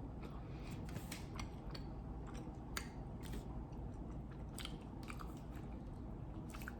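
A person chewing a soft fudge bar close to the microphone, with irregular small wet mouth clicks.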